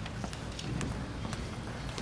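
Room noise in a large hall: scattered light clicks and knocks over a low rumble, with no playing or talking.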